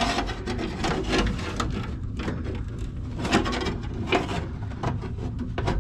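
Irregular rubbing and scraping in short strokes as an old mechanical refrigeration thermostat and its copper capillary sensing line are worked loose and pulled out little by little.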